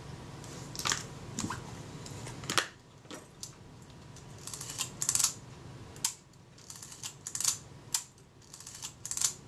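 A string of irregular sharp clicks and light taps from a partly assembled Kodak Retina IIIc camera body being handled and turned over, its small metal parts knocking.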